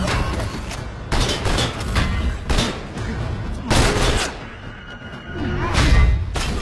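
Action-film fight sound effects: about six or seven sharp hits and crashes, some like gunshots, each with a deep rumble, over film score. The loudest hits come a little before halfway and near the end.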